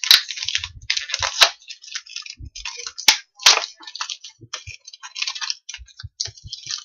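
Toy packaging crinkling and crackling in irregular bursts, with a few sharp cracks, as its protective layers are worked open by hand.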